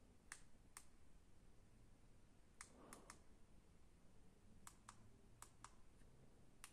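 Faint clicks of buttons being pressed on a SNDWAY handheld laser distance meter, about ten presses in small irregular groups.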